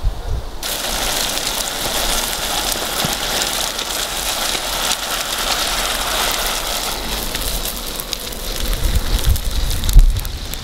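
Campfire coals hissing with fine, steady crackling, starting about half a second in; a couple of low thumps near the end.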